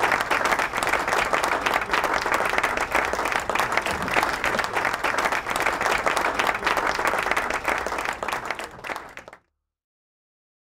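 A group of people clapping and applauding, dense and steady, fading out near the end and then cutting to silence.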